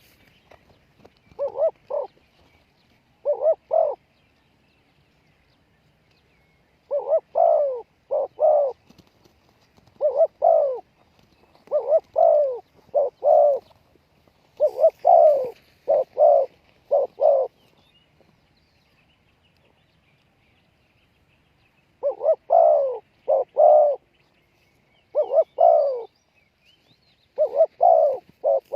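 Spotted dove cooing: repeated phrases of two or three coos, with pauses of a few seconds between phrases and a longer silence past the middle.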